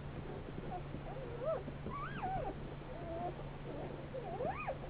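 Newborn Great Pyrenees–Anatolian Shepherd puppies, a day old, squeaking and whimpering in several short high cries that rise and fall in pitch, the loudest about two seconds in and another near the end.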